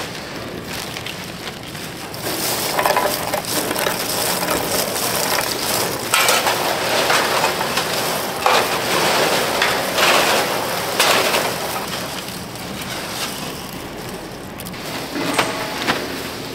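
Crisp puffed-grain snack bars rustling and clattering as gloved hands scoop them up by the handful and tip them into large plastic bags, with the crinkle of the bag film. The rustle is busiest through the middle and eases off near the end.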